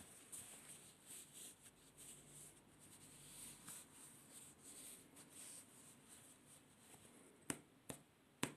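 Faint close-up rustling and scratching as a clip-on microphone is fitted against shirt fabric, with a few sharp clicks near the end.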